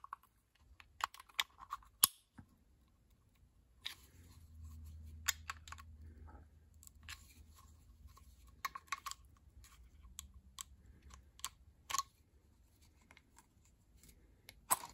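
Flat-blade screwdriver prying at the breaker plate of a 1946–48 Ford flathead distributor: scattered sharp metallic clicks and taps as the blade works against the steel plate to pry it loose.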